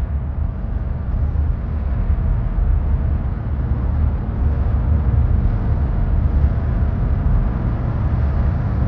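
Steady road noise inside a moving car's cabin at cruising speed, a low even rumble with no change.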